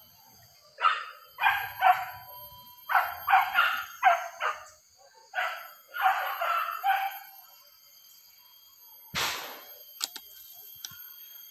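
Hunting dogs barking in quick runs of two or three barks, a dozen or so in all, which stop about two-thirds of the way in.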